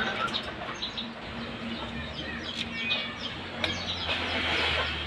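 Chickens clucking and small birds chirping in the background, with a few sharp clicks and a low hum that starts about two seconds in.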